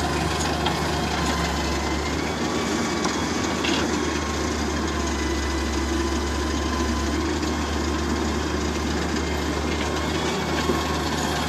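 Steady diesel engine drone of a wheeled Hitachi excavator working at close range as it digs and loads soil into a tractor trolley, with a tractor engine running alongside. A thin steady whine sits over the engine.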